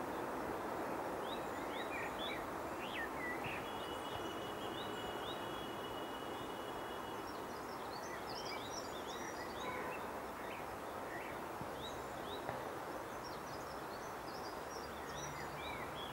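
Steady outdoor background rumble with small birds chirping and twittering throughout, and a thin, steady high whistle for a few seconds early in the middle.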